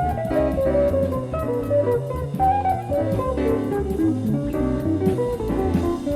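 Jazz-fusion band playing live, played back from a cassette tape: a quick melodic run of notes, likely guitar, over a steady electric bass line and drums with regular cymbal ticks.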